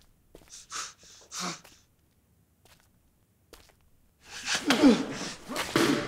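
A man's two sharp, breathy exhales, then after a short pause a loud, rough yell that falls in pitch.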